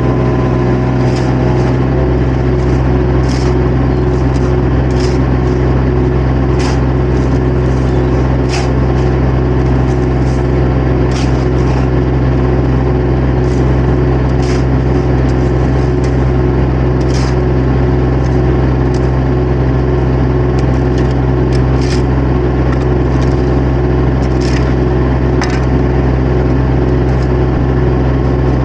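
Diesel engine of a compact construction machine running steadily at a constant speed, with scattered short clicks and clanks over it.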